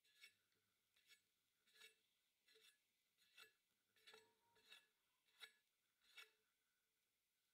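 Faint strokes of a metal offset spatula gliding over soft chocolate whipped cream as it smooths the top of a cake layer, about nine light swishes at a steady pace, roughly one every three-quarters of a second.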